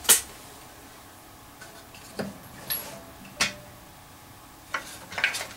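Scattered light clicks and taps of small tools and parts being handled on a soldering bench, with the sharpest right at the start and another about three and a half seconds in.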